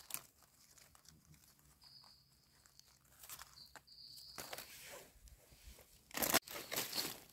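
Dry leaf litter crackling and rustling under hands working close to the ground while mushrooms are trimmed with a small knife. It is loudest in a couple of crunchy bursts about six seconds in. A thin high whine comes and goes a few times in the background.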